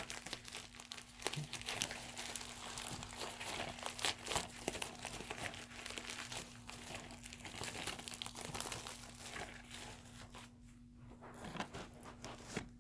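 Mail packaging being torn open and crumpled by hand: dense crinkling and rustling with sharp crackles, dying down to a few soft rustles about ten seconds in.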